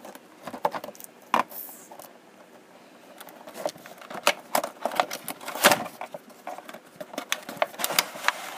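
Cardboard toy box and its plastic packaging tray being opened by hand: irregular crackles, taps and scrapes, sparse at first and busier from about halfway through.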